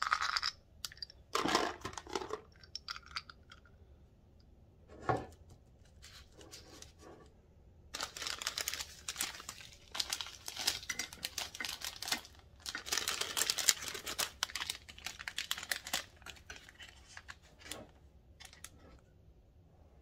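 Clear cellophane candy bags crinkling as they are handled and set in place, in two long stretches of dense crackling in the second half, with scattered rustles and light clicks before them.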